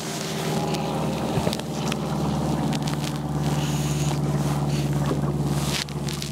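Wind and water slapping around a small fishing boat on choppy water, over a steady low hum, with a few scattered clicks and knocks.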